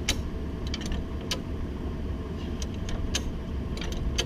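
Hi-Lift farm jack being pumped under a Toyota 4Runner, its climbing pins giving sharp metallic clicks, roughly one or two a second, as it ratchets the vehicle up. A steady low rumble runs underneath.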